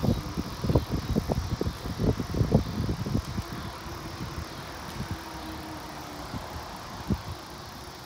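Bicycles rolling along a paved trail, with a rush of low thumps and rattles for about the first three seconds that then settles into a quieter, steadier rolling noise.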